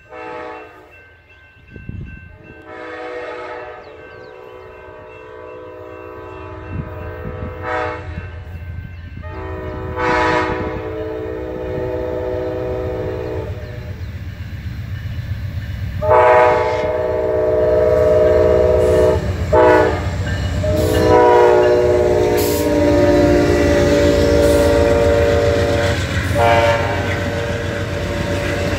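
Amtrak Auto Train locomotive's air horn sounding a series of long and short warning blasts for the grade crossing as the train approaches. The low rumble of the train grows louder, and the passenger cars roll past near the end.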